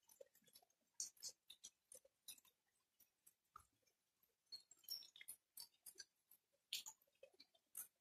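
Faint, scattered raindrops and drips falling as sparse irregular ticks, several a second, with no steady rain hiss beneath them.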